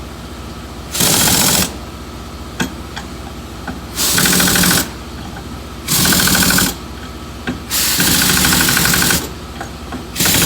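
Pneumatic impact wrench running lug nuts onto a skid steer wheel in five short bursts of rapid hammering, each about half a second to a second long, over a steady low hum.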